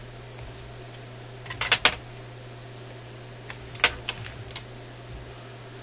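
Sharp clicks and taps of small hard parts being handled and set down on a workbench: a quick cluster about two seconds in and one sharp click near four seconds, over a steady low hum.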